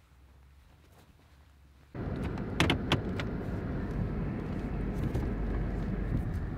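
Faint room tone, then about two seconds in a sudden switch to steady engine and road noise inside a moving minivan's cabin. A few sharp clicks or rattles come shortly after the switch.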